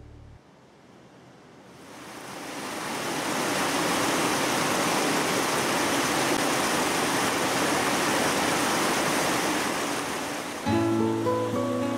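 Water rushing over a small river weir: a steady rushing noise that fades in about two seconds in and holds. Strummed acoustic guitar music fades out at the start and comes back in near the end.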